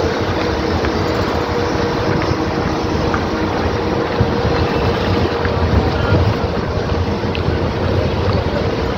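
Moving bus heard from a seat by the open window: a steady engine drone and road rumble, with wind buffeting the microphone and a faint steady whine running underneath.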